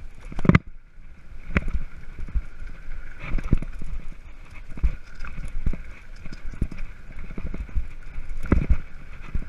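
Mountain bike riding over a rough dirt trail: irregular knocks and rattles from the bike as it hits bumps, loudest about half a second in and again near the end, over a steady hiss of tyres on dirt.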